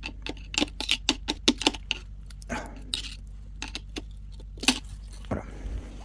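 Small metal clicks and clinks of gearbox parts and tools being handled on the gearbox casing during teardown: a quick run of light clicks, then scattered ones with a louder clink near the end.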